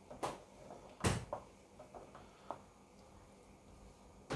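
Spoon knocking and scraping against a cooking pan as paneer pieces are stirred into masala gravy: a few scattered knocks, the loudest about a second in.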